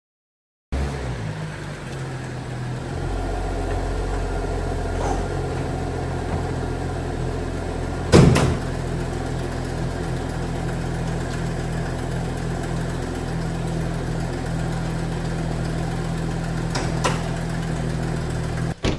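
BMW car engine running steadily at an even speed. One loud sharp knock comes about eight seconds in, with fainter clicks near five and seventeen seconds.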